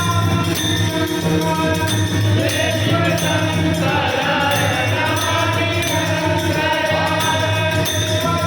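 Devotional bhajan gajar: a group of voices singing a refrain together over held steady tones, with jingling metal percussion keeping an even beat.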